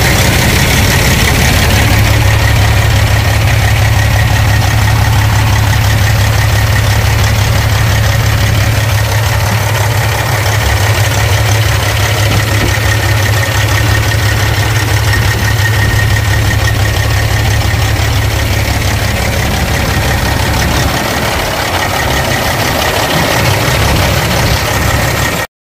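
Caterpillar diesel engine of a Freightliner semi truck idling steadily, heard up close in the open engine bay, a little quieter in the last few seconds.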